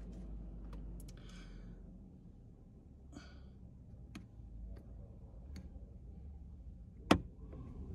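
Plastic suction-cup phone mount being pressed and worked onto a car dashboard: faint scattered clicks and handling noise, with one sharp click about seven seconds in as the mount is fixed in place.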